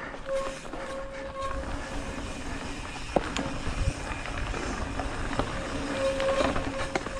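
Mountain bike riding dirt singletrack: rumbling tyre and wind noise, sharp knocks from bumps in the trail, and a steady pitched buzz that drops out for a few seconds in the middle and returns near the end.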